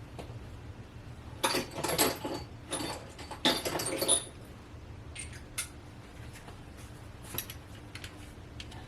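Metal hand tools clinking and rattling, a socket extension being fitted to a wrench, in a busy spell of clicks for a few seconds, then a few lighter clicks.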